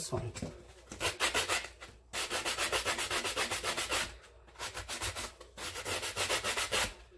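A rough abrasive scrubbing pad rubbed rapidly back and forth over an old metal cabinet hinge, scouring off rust. It goes in runs of quick strokes, about six a second, with brief pauses.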